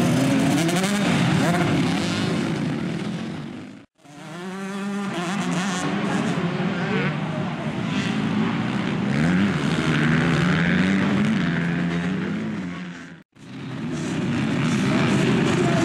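Motocross bike engines running and revving, the pitch climbing and falling with the throttle. The sound breaks off briefly twice, about four seconds in and again near the end.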